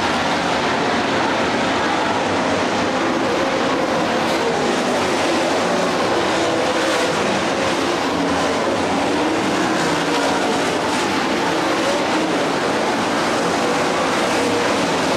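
A pack of dirt late model race cars running at racing speed, several V8 engines at once with pitches that waver up and down as they power through the turns. The sound is a dense, steady roar with no breaks.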